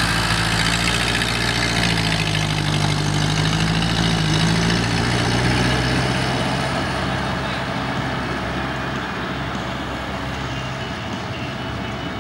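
Vintage Ford tractor's four-cylinder engine running at a steady speed as the tractor drives past and away, fading from about halfway through.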